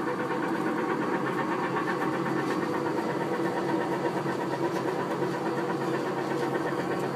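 Kiddie tractor ride car's drive running steadily as it travels along its track.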